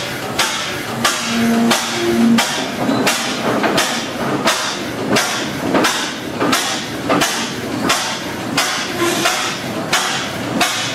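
1913 Fairbanks Morse tractor's single-cylinder gas engine running slowly, its firing heard as an even beat of sharp strokes at about two a second.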